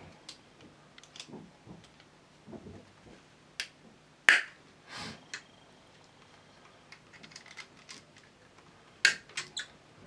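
Scattered small clicks and snaps of needle-nose pliers working a rusty metal-and-plastic quick-release helmet buckle on its strap. The sharpest click comes about four seconds in, and a quick run of three or four comes near the end.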